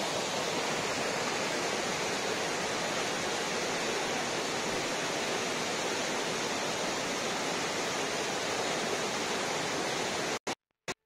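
Waterfall on a mountain creek, white water pouring down a rocky cascade with a steady rushing sound. It cuts off abruptly near the end, followed by a couple of sharp clicks.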